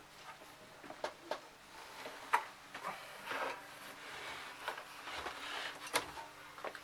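Handling noises of screw removal: scattered sharp clicks and short scrapes of a screwdriver and metal hardware, loudest about two seconds in and again near the end.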